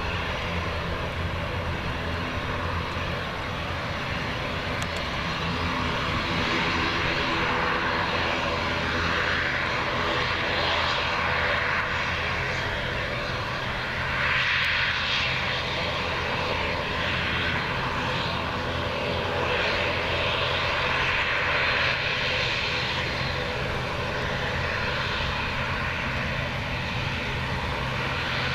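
ATR 72 turboprop's twin engines and propellers running as the aircraft taxis, a steady drone with a low propeller hum beneath a rushing hiss that grows stronger through the middle and eases toward the end.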